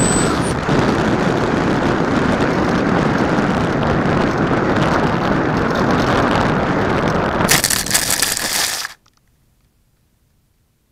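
Steady wind rush on the onboard camera's microphone of an electric glider coming in low. Near the end comes a brief, harsher rough scraping as the plane touches down and slides into the grass, then the sound cuts off abruptly to near silence.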